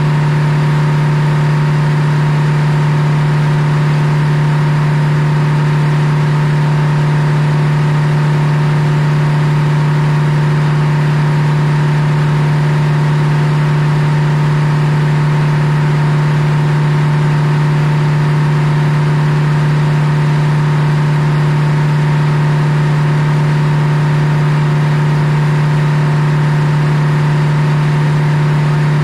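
Circular sawmill running steadily with no cut under way: the power unit and belt drive keep the big blade spinning, giving a steady low hum with higher overtones.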